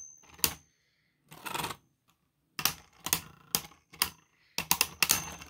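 Two plastic Beyblade Burst spinning tops battling in a plastic stadium: sharp irregular clicks and clacks as they strike each other, coming in quick clusters, with short quiet gaps and denser clicking near the end.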